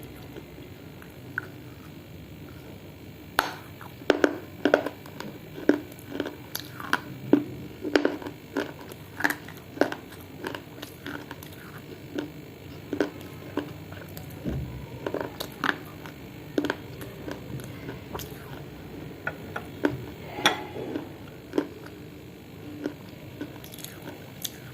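Baked edible clay and clay-pot pieces being bitten and chewed: irregular crisp crunches that begin a few seconds in, come thick and fast for several seconds, then grow sparser.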